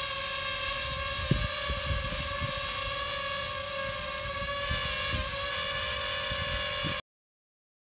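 DJI FPV drone hovering low, its propellers giving a steady multi-toned whine, with irregular low gusty rumbles and a brief thump about a second in. The sound cuts off suddenly about seven seconds in.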